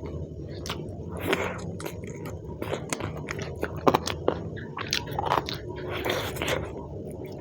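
Close-up eating sounds: a person chewing and biting mouthfuls of rice with chicken and spinach saag, with many short wet mouth clicks.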